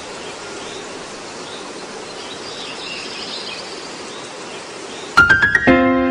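A steady background hiss with faint chirps. About five seconds in, a quick run of struck notes sets off background music with held tones.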